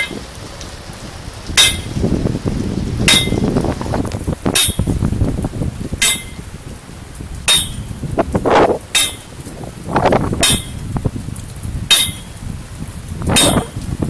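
Sharp metallic clinks repeating evenly about every one and a half seconds, about ten in all, over rain and wind noise.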